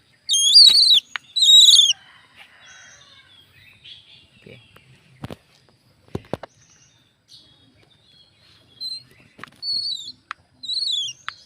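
Birds calling: two loud, shrill, downward-bending calls near the start, then softer chirps later, with a few sharp clicks in between.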